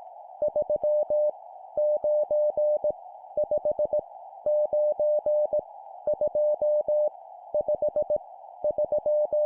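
Morse code practice tone: a single steady beep keyed on and off in dots and dashes, sending random digits at 17 words per minute, about seven characters, over a steady hiss.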